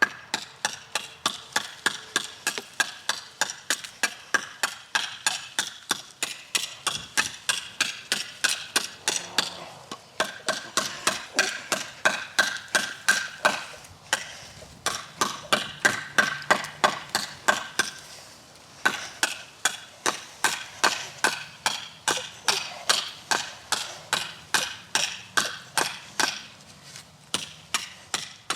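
A hand-forged 5160 steel cleaver chopping into wood over and over, sharp blows about three a second, with a few brief pauses between runs of strikes, as an edge-retention test.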